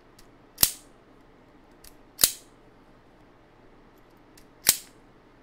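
Handheld wire stripper snapping shut three times, about two seconds apart, as it strips the insulation off thin BMS balance-lead wires, each stroke a sharp click.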